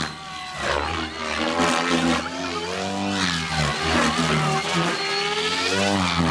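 Goblin Kraken electric 3D RC helicopter in aerobatic flight: the rotor and motor whine glides up and down in pitch again and again as it swoops and flips.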